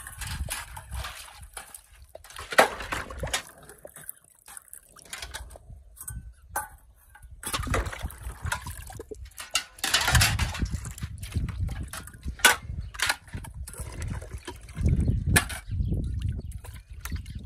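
Water sloshing and splashing, with irregular knocks and clatter.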